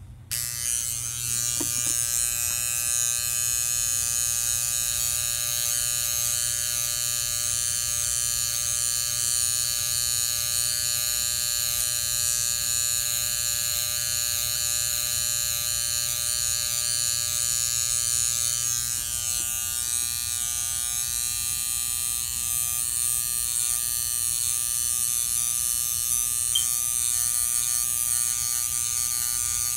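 Electric hair clippers switched on about half a second in, then running with a steady buzz as they cut hair along the side of the head and hairline.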